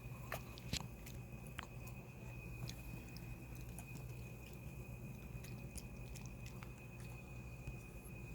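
A dog chewing, with a few sharp clicks and smacks, more in the first couple of seconds and sparser after, over a faint steady high whine.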